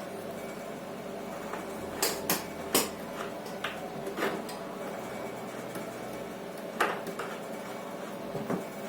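Scattered sharp clicks and knocks of plastic pipe fittings and tools being handled during polypropylene pipe soldering, about seven in all and the loudest a few seconds in, over a steady low hum.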